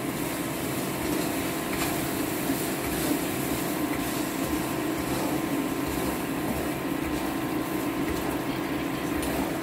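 A steady machine hum with a constant low drone and a faint hiss throughout, from a running appliance or fan.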